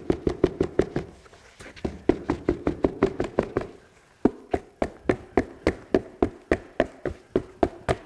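A hand patting the back of a carpet sample in quick slaps, about three to four a second with two short pauses, knocking out dirt the vacuum left in the pile.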